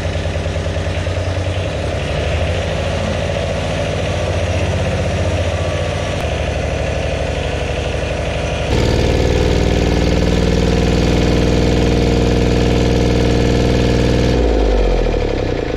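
A motor running steadily. It steps up to a stronger, fuller note about nine seconds in, then starts winding down in pitch near the end, as it is shut off.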